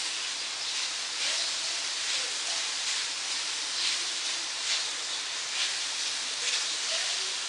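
Chopped onion, tomato, green chilies and sesame seeds dry-roasting on a hot tawa without oil, sizzling and hissing steadily, with faint strokes about once a second as they are stirred.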